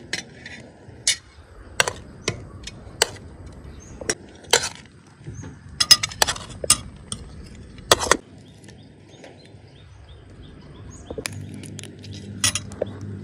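Metal spoon and fork clinking and scraping against china plates and a serving tray as fried rice is dished out: about ten sharp clinks spread over the first eight seconds. Near the end, softer crackling as a grilled giant river prawn's shell is pulled apart by hand.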